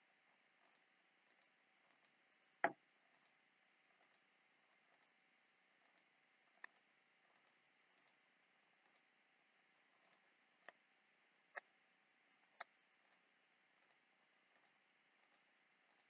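Computer mouse clicking five times, one click at a time a few seconds apart and then three in quicker succession, over a faint hiss with very faint regular ticking.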